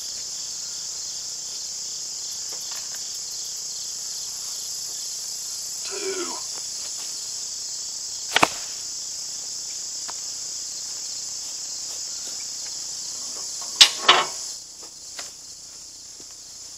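Heavy old wooden barn tier rails, termite-damaged, knocking as they are handled and laid on the ground: one sharp wooden knock about halfway through and a louder double knock about five seconds later. Crickets trill steadily underneath.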